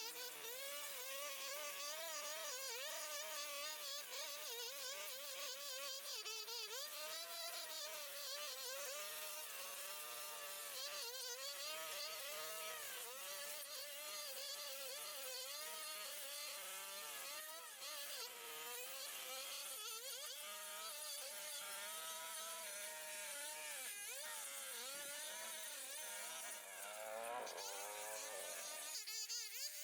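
Small two-stroke engine of a handheld brush cutter running with a high, buzzing whine, its pitch wavering up and down as the throttle is worked while cutting overgrowth.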